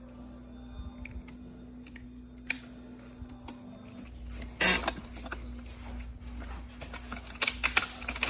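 Thin aluminum can sheet crinkling and clicking as it is wrapped snugly around a stripped bolt head: scattered small clicks, a louder crinkle about halfway through, and a quick run of clicks near the end.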